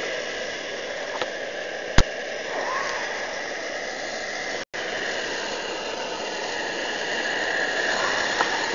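Pressurized liquid-fuel camp stove burner running at full flame, a steady hum with a high whistle. A single sharp click about two seconds in, and the sound cuts out for an instant about halfway through.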